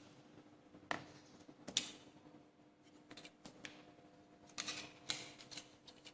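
Sharp clicks and light clicky rattling of small laptop parts being handled during disassembly: two single clicks early, then a short cluster of clicks about five seconds in.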